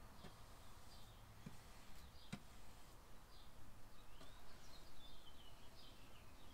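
Faint birdsong: small birds chirping and twittering over and over, above a low steady hum. A few faint clicks, the sharpest about two seconds in.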